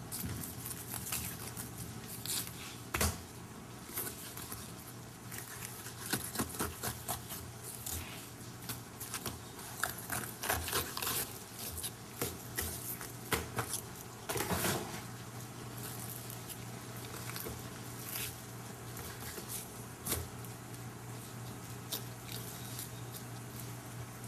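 Rapala fillet knife cutting a walleye on a cleaning table: irregular short scrapes and clicks as the blade slices along the rib bones and the fish and knife tap the table, with a longer scrape about halfway through.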